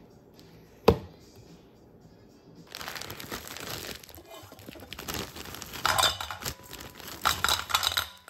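A sharp knock about a second in, then the plastic bag of frozen shrimp crinkling as it is handled and the shrimp are tipped into a stainless steel bowl, loudest near the end.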